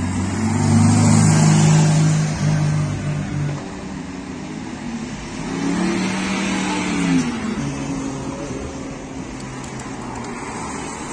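A classic Porsche 356's air-cooled flat-four drives past, loudest in the first two seconds and fading out by about three and a half seconds. About six seconds in, a Mercedes-AMG saloon's engine drives past, its note rising and then falling.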